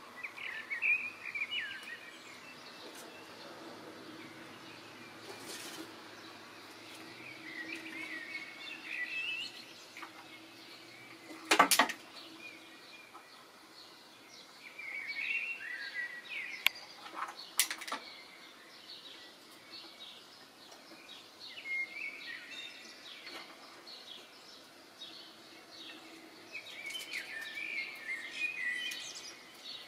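Small songbirds chirping in short bursts of quick notes, several times over, with a few sharp knocks, the loudest near the middle.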